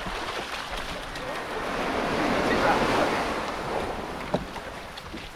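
Sea wave surging up and washing back, a rushing noise that swells to its loudest about three seconds in and then eases off. A brief knock about four seconds in.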